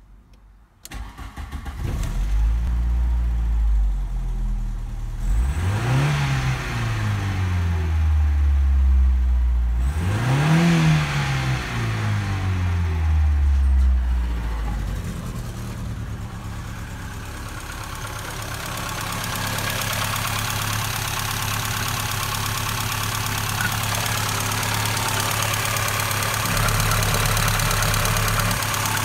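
VW Passat B4's 1.8-litre ADZ four-cylinder petrol engine cranking and catching about a second in, then idling. It is revved briefly twice, about five and ten seconds in, and settles back to a steady idle. In the second half it is heard up close in the open engine bay.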